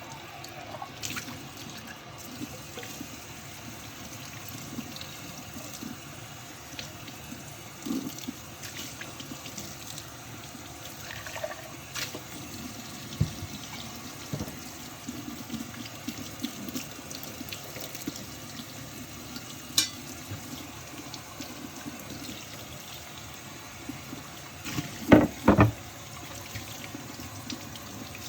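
Water running into a kitchen sink during hand dishwashing, with scattered clinks and knocks of dishes being handled. A quick run of louder knocks comes near the end.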